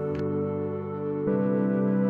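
Background music: soft new-age style piece of held, sustained chords, moving to a new chord about a second and a half in.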